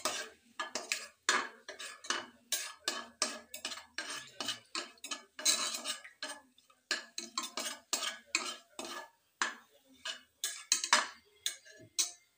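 Steel spatula scraping and knocking against the inside of a metal pressure cooker in quick, irregular strokes, stirring bay leaves and whole spices frying in mustard oil.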